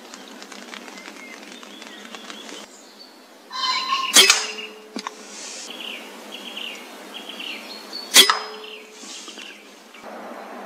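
Two shots from a pre-charged pneumatic air rifle, about four seconds apart, each a sharp crack followed by a brief ringing tone.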